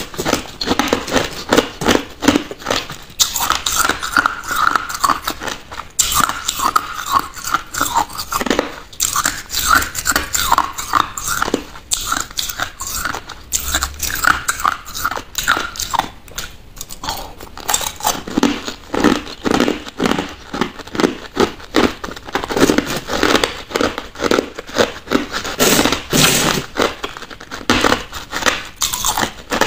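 Crushed ice being crunched between the teeth in a dense, continuous run of crackling bites.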